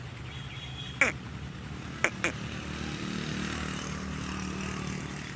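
Steady low engine drone of a motor vehicle. Three short, sharp sounds cut across it, each falling in pitch: one about a second in, then two close together about two seconds in.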